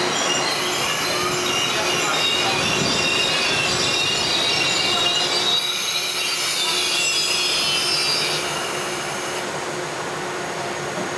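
Electric commuter train on the MTR East Rail line, its wheels squealing on the rails with a rumbling running noise beneath. The squeal fades out and the sound drops off about eight and a half seconds in.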